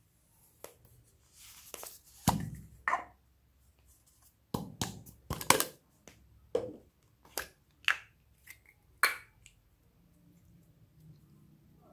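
Close-up handling of slime and its plastic container: a string of about ten sharp clicks and squelchy pops as the slime is squeezed and pulled out, fading to faint handling noise near the end.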